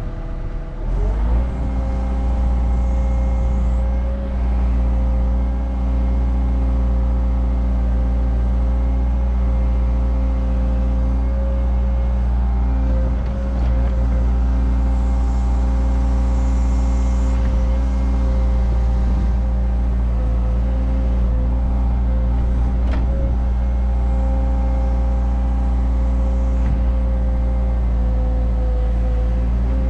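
Caterpillar 306 mini excavator's diesel engine revving up about a second in, then running steadily at working speed while the machine digs, heard from the operator's cab.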